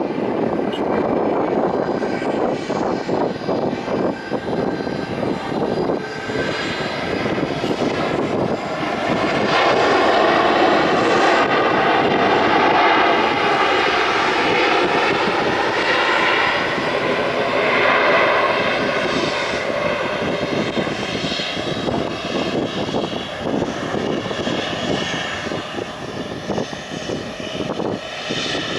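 Boeing 737 MAX 9 airliner passing by with its CFM LEAP-1B turbofan engines running: a continuous jet roar with whining tones that slowly shift in pitch, loudest about ten to thirteen seconds in.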